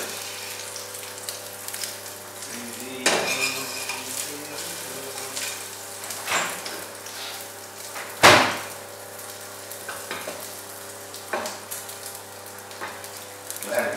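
A bread omelette sizzling in a frying pan on a gas stove, while a metal utensil scrapes and knocks against the pan several times, loudest a little past eight seconds in. A low steady hum runs underneath.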